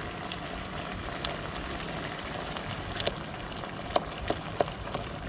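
Steady hiss of a pan of fish-stock broth simmering over a gas barbecue burner, with a few light clicks near the end as a wooden spoon stirs the pan.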